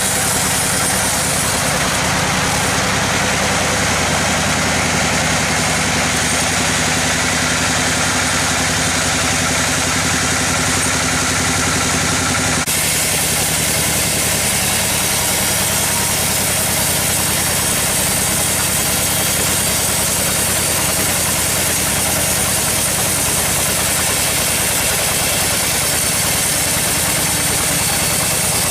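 Sawmill machinery running steadily, with a motor hum under a broad mechanical noise. The sound changes abruptly about halfway through.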